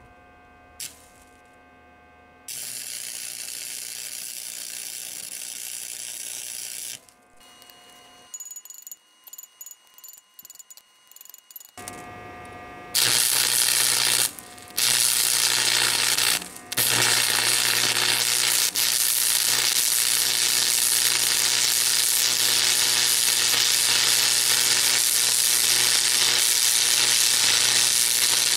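Stick-welding arc crackling and sizzling on a lawn tractor transaxle's differential gear, welding it solid to lock the differential. It strikes and sputters in short starts at first, then burns in a loud steady crackle from about halfway in, with two brief breaks.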